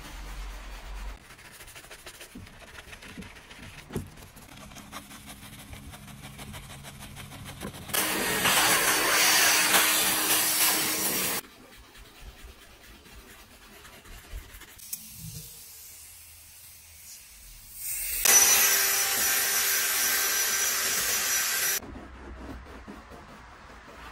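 Detailing brush scrubbing cleaning foam into a car's door trim, a quiet scratchy rubbing, broken twice by a loud steady hiss lasting about three and a half seconds, once about a third of the way in and again past the three-quarter mark.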